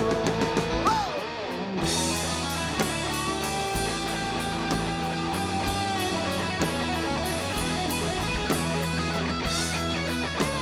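Rock band playing live, an instrumental break led by electric guitar over bass and drums with a steady beat.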